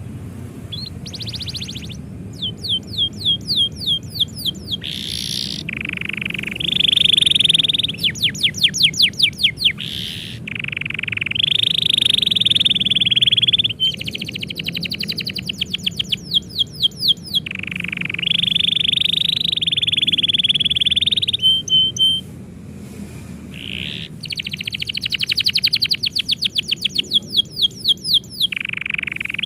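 Domestic canary singing: phrase after phrase of rapid repeated notes, some fast trills of rising strokes and some long buzzy rolls, with short pauses between phrases.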